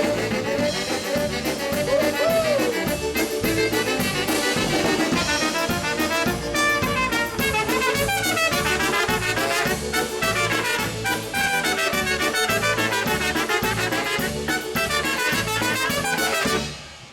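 Live brass band playing an instrumental closing passage with trumpets, trombone and a steady beat, quick melodic runs in the horns, ending abruptly near the end.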